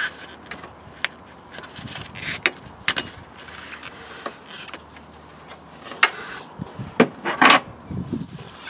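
Socket wrench working the belt tensioner while the multi-rib auxiliary belt is pulled off the pulleys: scattered clicks, knocks and rubbing, with the loudest knocks and a short rasp near the end.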